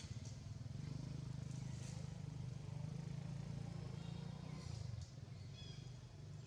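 Low, steady drone of a vehicle engine running, dropping away about five seconds in, with faint high squeaks near the end.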